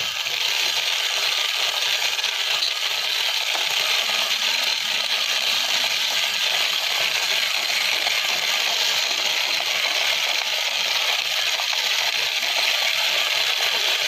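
Plastic toy dump truck pushed by hand over rough concrete, its plastic wheels rolling with a steady scraping noise.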